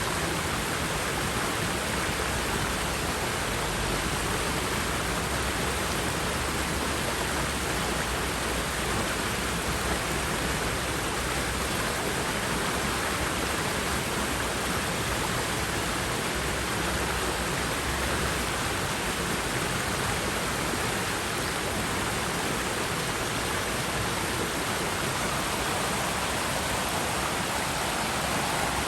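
River water rushing and splashing, a steady, even rush without letup.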